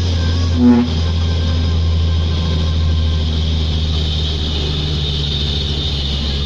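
Hino Ranger SG260Ti's six-cylinder turbo diesel engine heard from inside the cab, running steadily under load while the heavy truck drives along, its note dropping a little about halfway through. A short pitched blip sounds about a second in.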